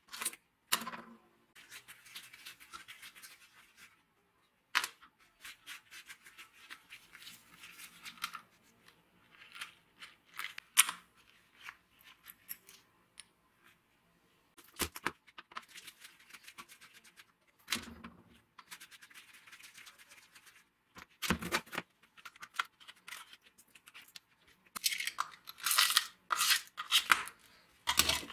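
Hands taking apart an old angle grinder: intermittent clicks and knocks of small metal and plastic parts and tools against the housing, with scraping and rustling between them. The handling is busiest near the end.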